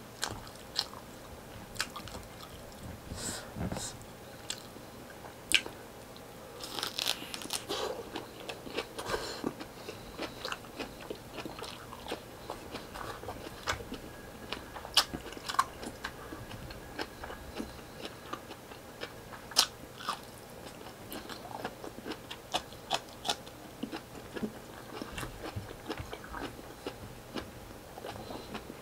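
Close-miked chewing as a man eats mouthfuls of rice and side dishes by hand: wet mouth sounds and many sharp clicks, busiest about a quarter of the way in.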